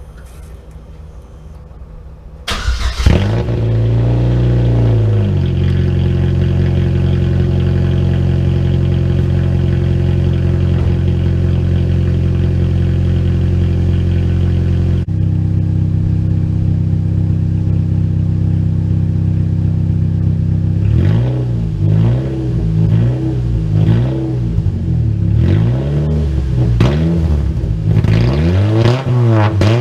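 Pontiac Sunfire's 2.2 L Ecotec four-cylinder engine cranking and starting about two and a half seconds in, with a brief rev before it settles to a steady idle. The idle drops slightly about halfway through. In the last several seconds the engine is revved up and down repeatedly.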